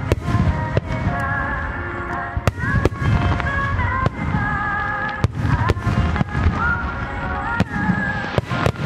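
Aerial firework shells bursting in a show, about a dozen sharp bangs at irregular intervals, heard over music with a melody of wavering held notes.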